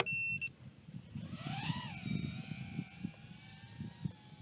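A short electronic beep, then the Razor X125 2.5-inch micro racing quadcopter's 1106 6000KV brushless motors and props spool up with a whine that rises and falls about a second in as it takes off. The whine then settles into a steady, fairly faint hum.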